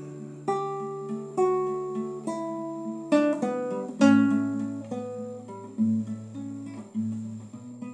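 Classical guitar played solo: slow plucked chords about once a second, each ringing out and fading, over a low bass note, with no singing.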